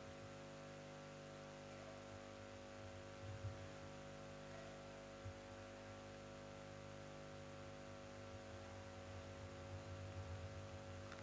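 Faint, steady electrical mains hum from the microphone and sound system, with a couple of small soft bumps.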